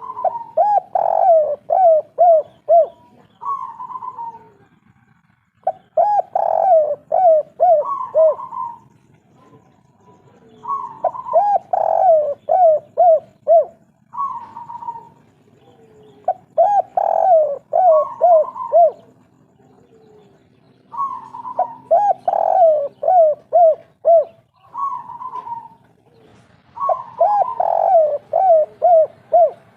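Spotted dove (tekukur/derkuku) of the 'kuk 3' song type cooing. It repeats the same phrase about every five seconds, six times: an opening coo, a rolling run of quick falling coos, then a separate, slightly higher coo after a short pause.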